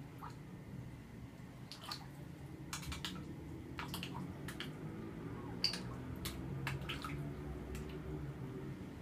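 Small, sharp splashes and drips at the aquarium water surface as red-bellied piranhas strike at food held at the surface, a dozen or so scattered irregularly through, over a low steady hum.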